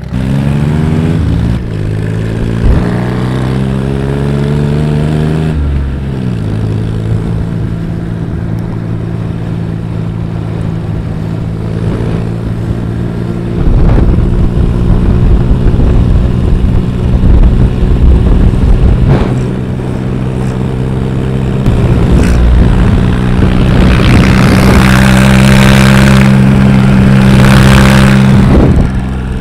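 Diesel motorcycle engine running on the move. Its note rises as it accelerates in the first couple of seconds, then holds steady. Wind and road rush grow louder later on.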